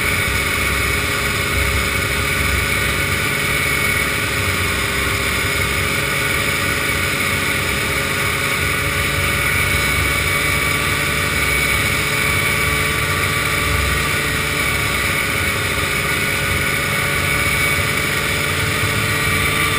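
Vintage snowmobile engine running at a steady cruising speed, its pitch holding nearly constant, with wind buffeting the microphone.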